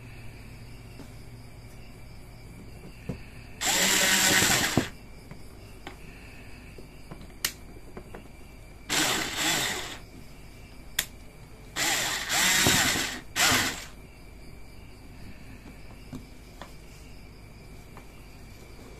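Small electric screwdriver running in short bursts, its motor whirring up and down as it drives screws: once about four seconds in, twice around nine seconds, then again near twelve to fourteen seconds. A few sharp clicks fall between the bursts.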